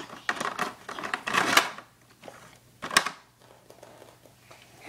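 Small plastic toy figures being handled and set down on a wooden floor: scattered clicks and rustles, with one sharp knock about three seconds in.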